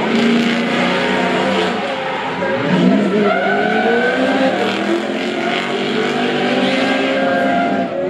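Two drift cars in a tandem battle, one a V8-swapped BMW E46 M3, their engines revving up and down at high rpm while the tyres squeal under wheelspin.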